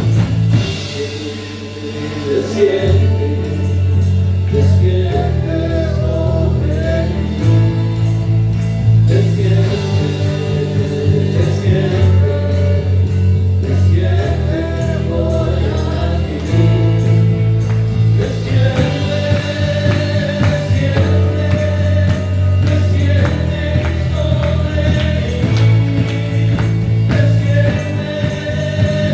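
Christian worship song: voices singing over a band, with long held bass notes that change every two to three seconds.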